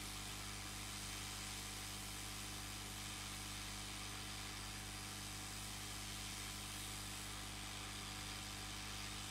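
Hot air rework station blowing steadily over a laptop motherboard to desolder a shorted integrated MOSFET: an even airy hiss over a steady low hum.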